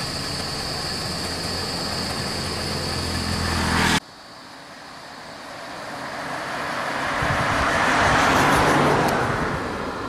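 Road vehicle engines idling with a steady low hum, cut off suddenly about four seconds in. Then a vehicle passes close, its road noise swelling and fading away.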